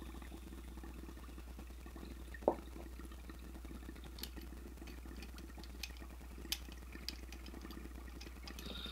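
Water bubbling steadily through a glass dab rig as a long dab hit is drawn through it, with a few sharp clicks, the loudest about two and a half seconds in.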